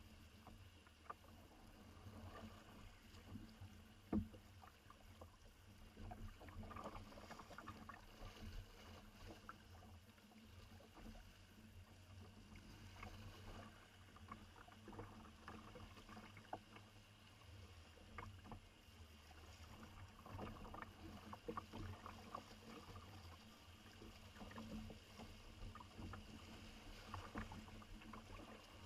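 Faint kayak paddling on a river: soft paddle splashes and water trickling, with scattered small clicks and one sharper knock about four seconds in.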